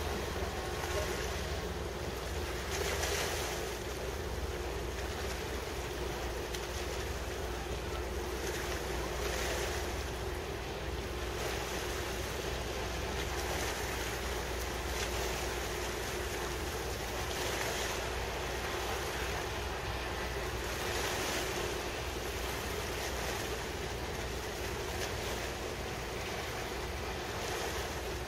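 Wind gusting across the microphone, rising and falling every few seconds, over harbour water lapping and a steady low hum.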